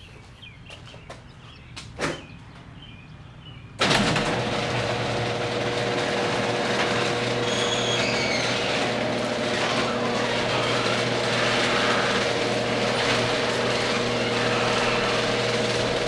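Electric garage door opener starting with a sudden jolt about four seconds in, then running steadily with a low hum and a whine as it pulls the sectional overhead door down. The door closes all the way without reversing, a sign that the safety electric eye is no longer being blocked. There is a single click shortly before the motor starts.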